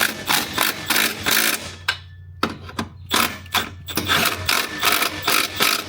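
Hand ratchet wrench worked back and forth on a bolt, a rapid rasping stroke about three or four times a second, pausing briefly about two seconds in.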